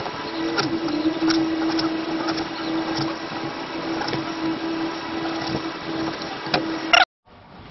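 Knife chopping on a cutting board, irregular knocks about every half second, over a steady mechanical hum. Everything cuts off abruptly about seven seconds in.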